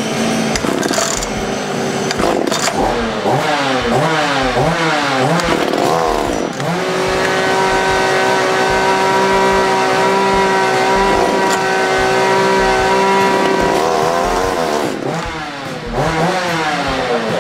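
Tanaka PMS-330A two-stroke chainsaw engine running, revved up and down several times with the throttle, then held at a steady speed for several seconds, and revved up and down again near the end.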